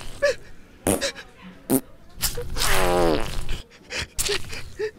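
Cartoon sound effects of a drunk man's slumped body: short wet blips and a few sharp clicks, with one long rasping sound that falls in pitch a little past halfway.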